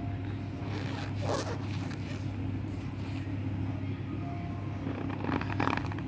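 Cornstarch being squeezed and crumbled by hand, giving short squeaky, crunchy rasps: one about a second in and a longer cluster near the end. A steady low hum runs underneath.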